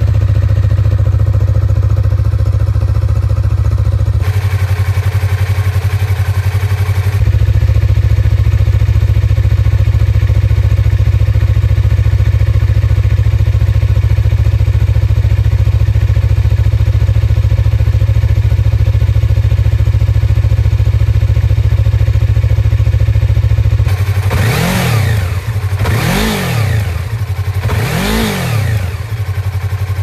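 Yamaha MT-03's 321cc parallel-twin engine idling steadily, heard close to its stock muffler, then revved three times near the end, each rev rising and falling back to idle.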